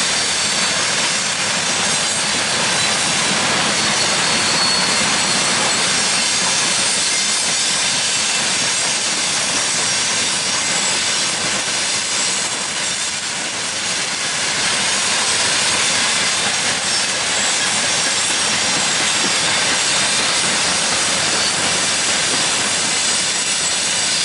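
Freight train rolling past, a steady noise of wheels on rails, dipping slightly about halfway through.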